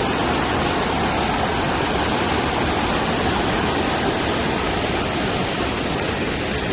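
Steady rush of a mountain valley stream in the rain, an even wash of water noise.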